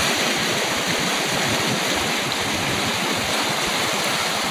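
Steady rush of water from a sailing trimaran's wake and hulls moving through the sea, an even continuous hiss with no separate splashes.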